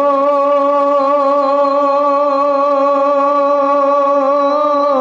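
A man singing a Bengali gazal (Islamic devotional song) into a microphone, holding one long note with a slight waver before moving on to the next phrase just after it ends.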